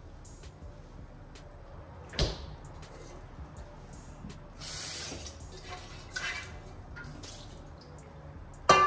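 Kitchen handling sounds: a single heavy thump about two seconds in, a short hiss around the middle, and near the end a loud clank of a metal cooking pot that rings briefly.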